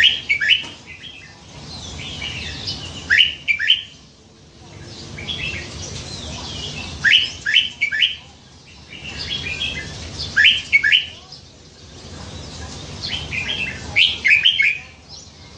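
Red-whiskered bulbul singing in its cage: five short phrases of quick, clear whistled notes, one every three to four seconds.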